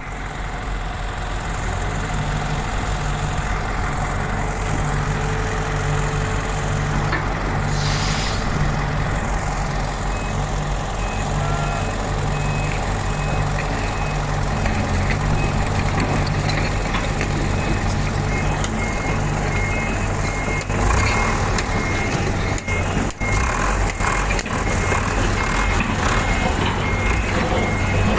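Heavy construction machine's engine running steadily, with a warning alarm beeping repeatedly from about a third of the way in.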